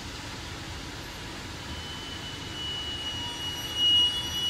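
Regional passenger train coaches rolling slowly past the platform with a low rumble. About halfway through, a steady high-pitched metallic squeal from the running gear sets in and grows loudest near the end.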